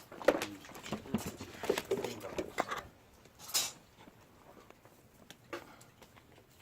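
Clinks and small knocks of spoons and bowls during a meal, with some low murmuring, then one short hiss about three and a half seconds in.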